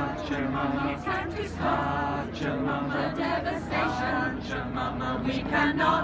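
Small mixed choir of men and women singing together unaccompanied, with phrases rising and falling in a steady sung melody.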